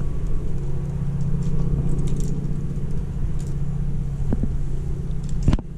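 A steady low rumble with a constant hum under it and a few faint clicks, cutting off abruptly with a click near the end.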